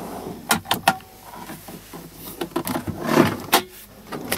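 Plastic storage drawers in a truck cab's front console being slid open and shut, with three quick sharp clicks about half a second in and a rustling slide followed by another click a little past three seconds.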